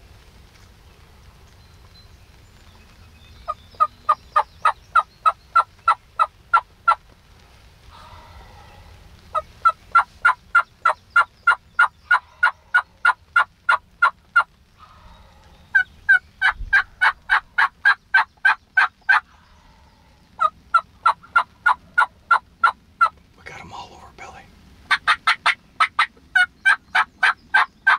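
Turkey yelping: five long runs of evenly spaced, loud yelps, about four a second, with short pauses between the runs.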